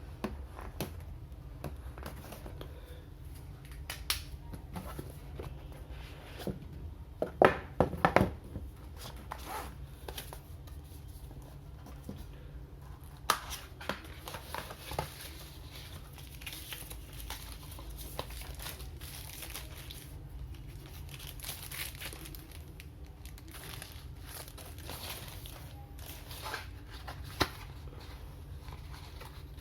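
Packaging being handled while a smartphone is unboxed: plastic crinkling and tearing, with scattered clicks and taps. The loudest cluster comes about a quarter of the way through. A steady low hum runs underneath.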